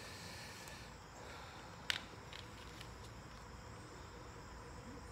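Faint handling of a plastic car phone mount: one sharp click about two seconds in, then a few lighter ticks, over a steady faint background with thin high tones.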